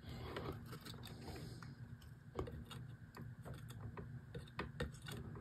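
Faint, scattered light clicks and taps as a resistor's wire lead is placed against an LED lead and touched with a soldering iron for a solder joint, with one slightly louder tap about two and a half seconds in.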